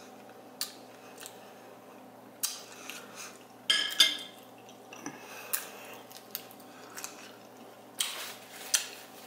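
Metal fork clicking and scraping against a plate in irregular, separate strokes, mixed with crunching as a crisp, fried corn-tortilla taco shell is broken and bitten. The loudest cluster comes about four seconds in, with another near the end.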